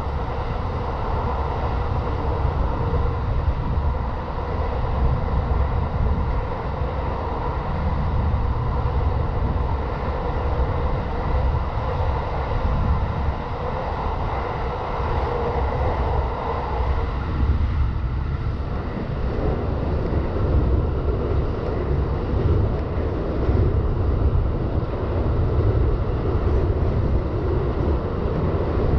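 Electric commuter train of the JR Joban Line running at speed: a steady rumble of wheels on rails with rushing air. A little past halfway the sound shifts, the middle of it dropping back and the low rumble coming up.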